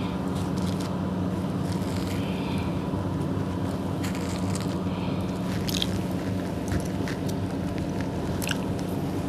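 Scattered crackles and clicks of hands handling bread rolls and their plastic packaging, over a steady low hum.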